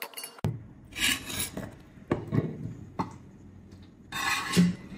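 Three rasping, scraping strokes, the last the loudest: a spoon scraping through cooked beef and lentils in a metal pot, then a stone batta (muller) rubbing over a sil grinding stone.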